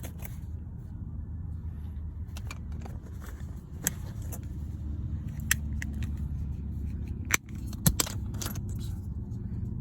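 Sharp plastic clicks and snaps as a Lexus smart key fob's casing and key blade are pushed back together, a handful of separate clicks with the loudest near the end, over a steady low hum.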